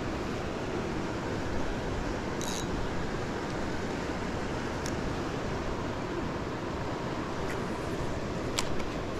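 Steady rush of river water flowing, with a few brief faint clicks, the clearest about two and a half seconds in and again near the end.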